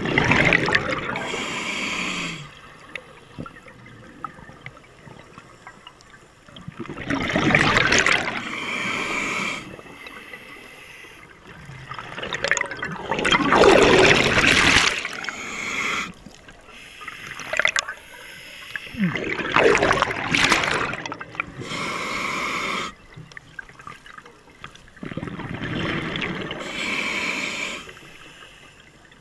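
Scuba diver breathing through a regulator underwater: five loud bursts of exhaled bubbles, about six seconds apart, with quieter stretches between.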